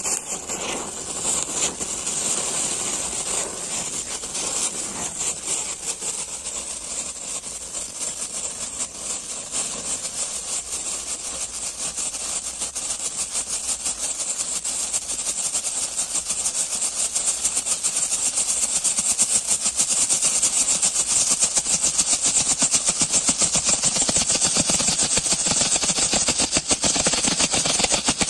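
Clay-pot fountain fireworks (matki anar) spraying sparks: a steady hiss with a fast sputtering flutter, the generator-like sound these 'generator anar' fountains are known for. It grows louder about two-thirds of the way through.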